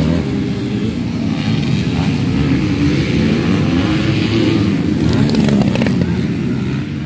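Several motocross bikes racing, their engines revving, rising and falling in pitch as they overlap.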